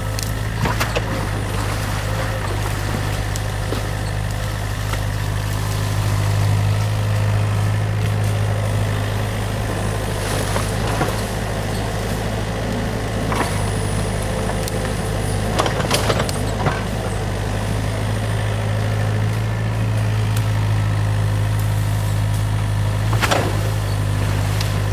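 New Holland mini excavator's diesel engine running steadily with a deep hum as the boom and bucket work, with a few sharp knocks scattered through, a cluster of them about two-thirds in.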